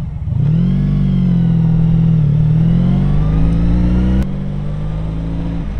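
Honda VF1000R's V4 engine, running on swapped-in VF1000F carburettors, pulling away under throttle with its note climbing. About four seconds in the note drops suddenly to a lower, quieter, steady run.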